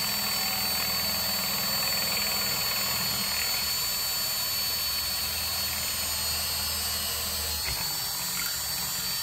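Hand drill with a quarter-inch bit running steadily at high speed, boring a hole through a fiberglass rifle stock, with a steady high whine over the motor noise.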